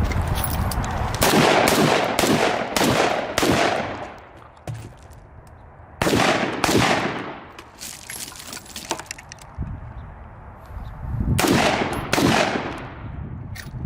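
Springfield Saint Victor AR pistol with a 10.5-inch barrel firing 5.56 rounds: a quick string of about five shots, then a pair of shots, then another pair near the end, each shot echoing.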